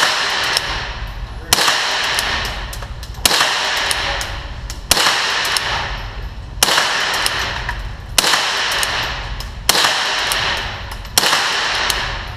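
Gunshots from a long gun fired one at a time at a steady pace, about one every second and a half, eight in all. Each is a sharp crack followed by a long echoing decay off the walls of an indoor range.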